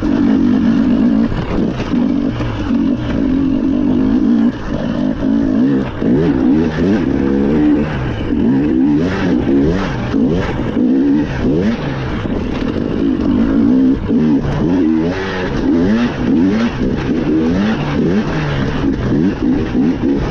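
Rally car engine revving hard at full load, its pitch climbing and dropping again and again through gear changes and throttle lifts. A run of sharp knocks and clicks sounds through the middle stretch.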